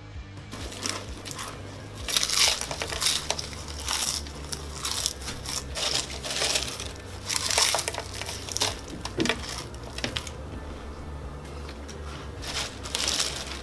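Potato chips crackling and crunching again and again as handfuls are scooped off a tray and chewed.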